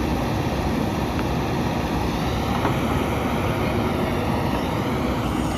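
JCB backhoe loader's diesel engine running steadily, a continuous rumble.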